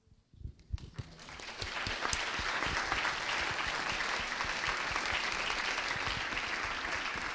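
Audience applauding: a few scattered claps build within about a second and a half into steady applause.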